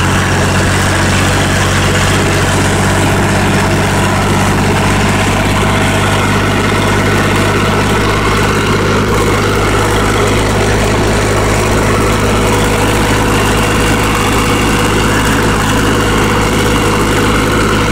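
Farm tractor engine running steadily under load, heard from the driver's seat while raking hay.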